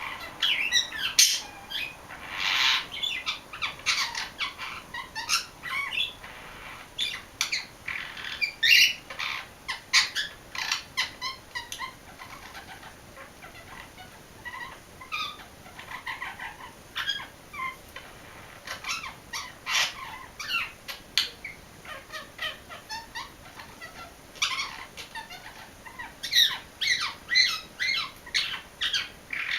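English budgerigar singing: a long run of quick chirps and warbling chatter, with one harsher call a few seconds in and sparser, quieter chirping through the middle.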